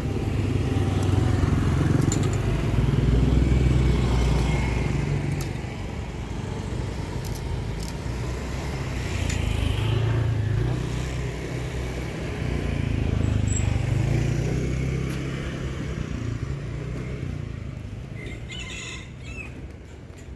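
Motorcycle engines passing by, the low engine sound swelling and fading about three times, with a few light clicks near the end.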